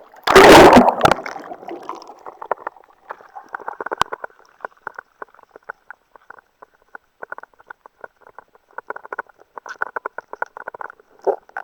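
Sea water splashing around someone swimming: one loud splash about half a second in, followed by a long run of small, irregular splashes and sloshing.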